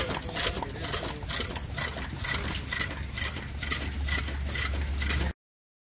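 Scale-model Parsell & Weed side-shaft gas engine running, a quick, even clicking beat over a steady low hum. The sound cuts off suddenly about five seconds in.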